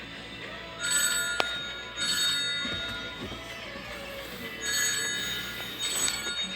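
A phone ringtone ringing in two pairs of short rings over background music.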